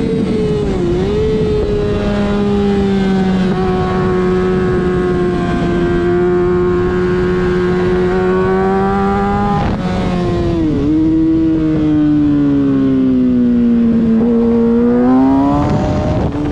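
Kawasaki ZX-6R 636 inline-four engine running at high revs, heard from on board the motorcycle, with wind rushing past. The engine note holds nearly steady at first, dips briefly about a second in and again around ten and eleven seconds, falls slowly over the next few seconds, then climbs sharply near the end.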